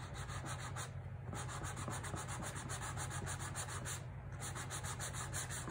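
Sanding pad rubbed in quick, even back-and-forth strokes across the cut ends of a stacked tarot deck, smoothing the freshly trimmed cardstock edges. The strokes pause briefly about a second in and again about four seconds in.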